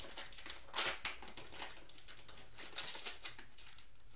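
Foil wrapper of a trading card pack crinkling in the hands as it is torn open, in a few short rustling bursts, the loudest about a second in.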